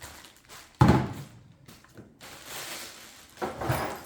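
Cardboard box and packaging being handled: a sharp thump about a second in, then rustling and a few light knocks.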